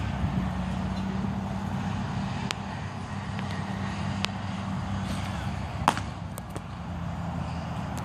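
A baseball pitch smacks into a catcher's mitt once with a sharp pop, a little more than a second after the pitcher's delivery. A steady low mechanical hum runs underneath, with a few fainter clicks.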